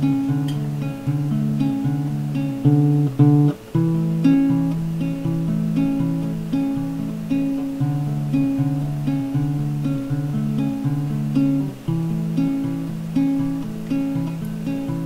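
Background music: an acoustic guitar plucking notes in a steady, repeating pattern.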